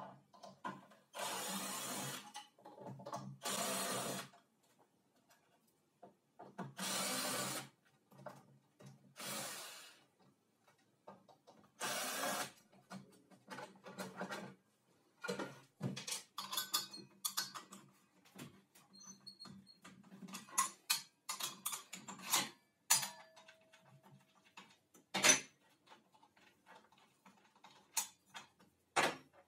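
Cordless drill-driver run in five short bursts of about a second each, backing out the screws that hold the circular saw's lower blade guard. This is followed by a run of sharp clicks and knocks as the screws and the plastic guard are handled and set down.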